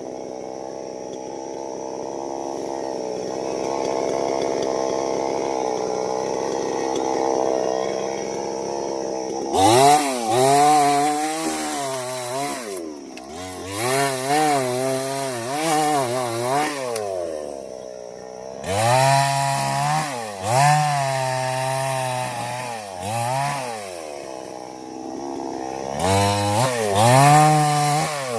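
Chainsaw running: a steady pitch at first, then from about ten seconds in the engine speed rises and falls over and over.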